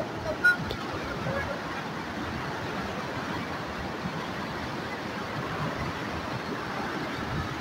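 River water rushing and churning in white-water turbulence below a barrage, a steady noise throughout. Two brief sharp sounds stand out near the start, the louder about half a second in.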